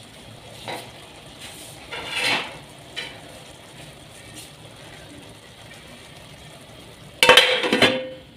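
Cookware sounds from an aluminium pot of frying minced meat: a few short scrapes and clicks, then about seven seconds in a loud metallic clatter with a brief ring as the pot's aluminium lid is handled.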